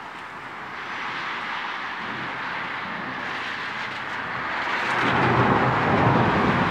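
Steady hiss of rain, with a low rumble of thunder swelling from about five seconds in and becoming the loudest sound.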